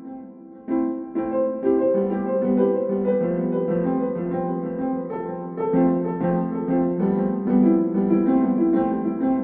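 Piano music, a steady run of notes; after a brief lull a new phrase begins just under a second in.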